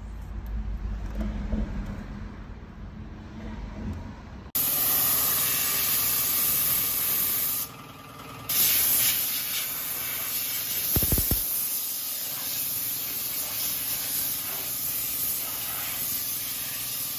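Pressurized spray cleaner hissing against an aluminium transmission oil pan. The spray starts suddenly about four and a half seconds in, stops for about a second near eight seconds, then continues steadily.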